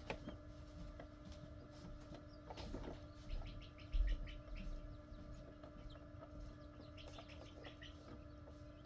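Newly hatched Coturnix quail chicks peeping inside an incubator: many short high chirps in quick runs, over the incubator's steady hum. One low bump about four seconds in.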